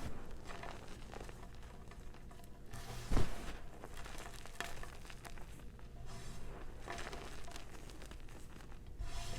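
Soft reformed gym chalk crumbling and crunching between the fingers: uneven crackles and small crisp snaps, with one louder thump a little after three seconds in.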